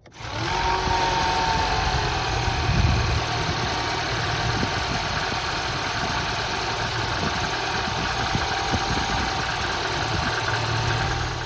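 Turbocharged four-cylinder engine of a 2008 Mini Cooper S running steadily at idle. The sound cuts in and out abruptly.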